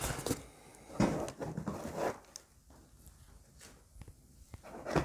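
Cardboard shipping box and its packing being rummaged through by hand: a few short rustles and scrapes in the first two seconds or so, then only faint small knocks.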